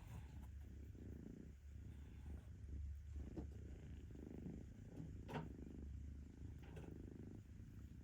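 Kitten purring, a steady low rumble, with a few brief sharper sounds over it, the clearest about five seconds in.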